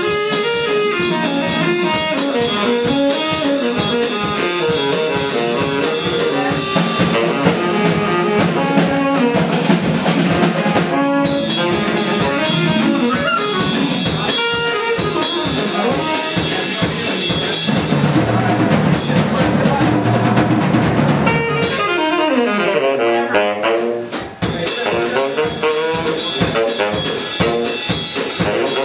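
A live band playing jazz-style music, with saxophone over a drum kit. The music drops out briefly about three-quarters of the way in.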